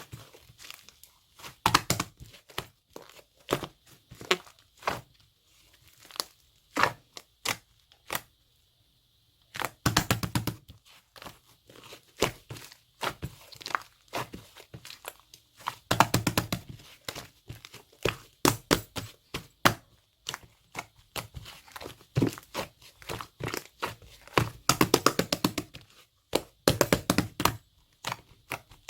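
Glittery purple slime being squeezed and stretched by hand close to the microphone, giving clusters of sticky crackles and pops that come in bursts of a second or two with short pauses between them.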